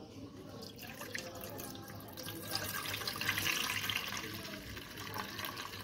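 Milk being poured from a steel pot into a wide steel pan, a continuous splashing pour that grows louder toward the middle as the pan fills.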